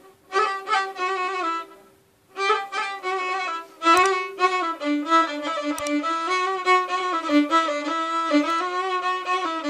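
Violin bowed in Moroccan chaabi style, playing an alwa melody: a short phrase, a brief pause about two seconds in, then a long run of quick, ornamented notes.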